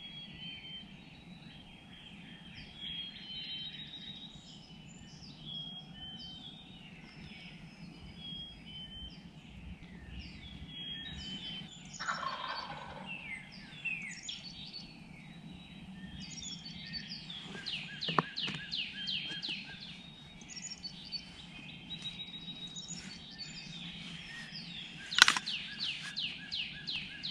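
A wild turkey gobbler on its roost gobbling, loudest near the end, while songbirds chirp and trill throughout.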